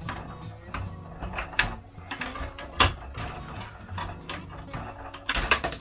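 Plastic parts of a Bruder toy cement mixer's discharge chute and its clip-on extension clicking and knocking as they are handled and clipped together: irregular clicks, one louder knock about three seconds in and a quick flurry of rattles near the end.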